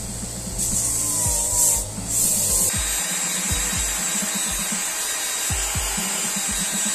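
Motorised sanding drum grinding the denim-covered edge of a handmade ballerina flat's sole, in short bursts as the shoe is pressed against it. From about three seconds in, a steady, even hiss takes over.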